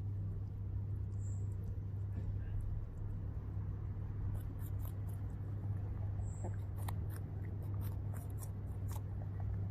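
Pet rabbit crunching on a piece of apple: a run of quick, crisp chewing crunches in the second half, over a steady low hum.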